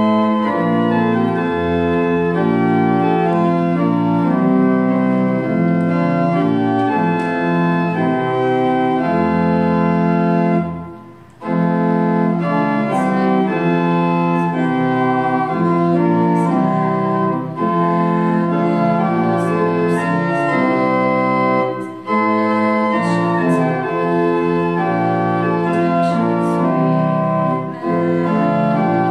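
Pipe organ playing a hymn in held chords, breaking off briefly about eleven seconds in and again between phrases. Faint singing voices join the organ after the first break.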